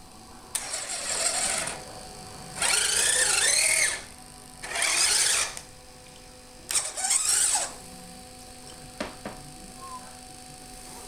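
Electric motors on a radio-controlled Kyosho Blizzard SR whirring in four short bursts, each about a second long, the pitch rising and falling as they speed up and slow down. A couple of small clicks come between the bursts.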